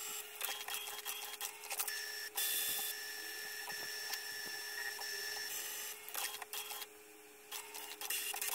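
HP DeskJet 3070A inkjet printer running a printhead cleaning cycle: its motors whine in short runs at changing pitches, with many clicks and ticks from the carriage and paper mechanism.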